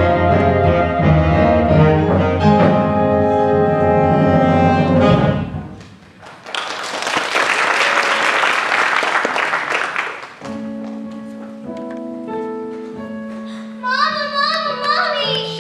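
Live theatre pit orchestra playing the musical's opening music, which ends about five seconds in; audience applause follows for about three seconds, then the orchestra goes on with soft, sparse held notes.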